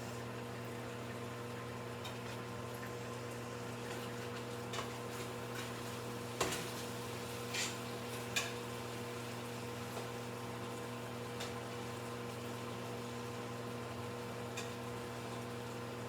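Beef cooking in a stew pot on the stove, a faint steady sizzle and bubbling under a constant low hum, with a few soft clicks.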